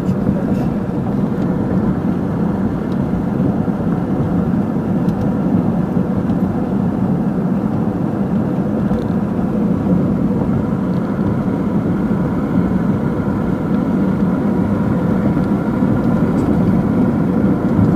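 Steady road and engine noise inside the cabin of a moving car, even and unchanging throughout.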